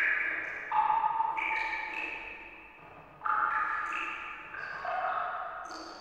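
Water drops plinking, one after another at irregular intervals, each a clear ringing note at a different pitch that fades away.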